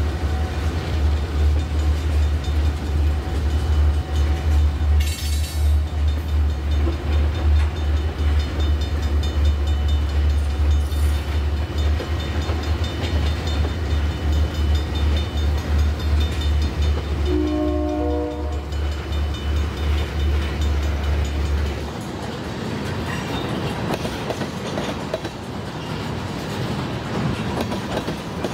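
Loaded ethanol tank cars rolling over a grade crossing, with a steady low rumble and clatter of wheels on rail. A short train horn sounds about two-thirds of the way through. The deep rumble drops away suddenly near the end, leaving a lighter rolling clatter.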